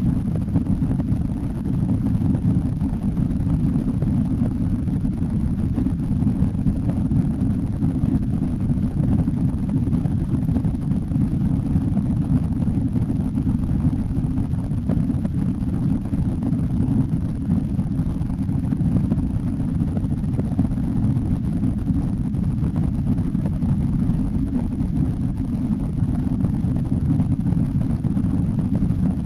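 Boeing 767 passenger cabin during take-off: the jet engines and airflow make a steady low rumble that holds unchanged throughout.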